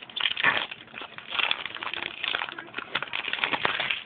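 Foil wrapper of a trading-card booster pack crinkling and tearing as it is opened by hand, in irregular crackly rustles.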